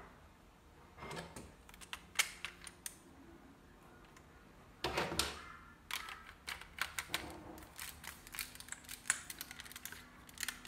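Plastic Lego pieces of a brick-built pistol clicking and clattering as they are handled and pressed together: scattered sharp clicks, a louder clatter about halfway, then a run of quick clicks.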